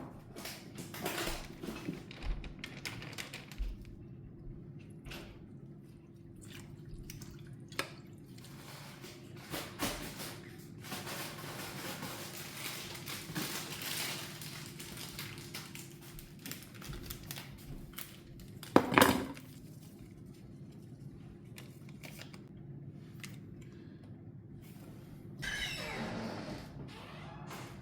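Kitchen work: scattered clinks and knocks of dishes, pots and utensils over a steady low hum, with one loud knock about two-thirds of the way through.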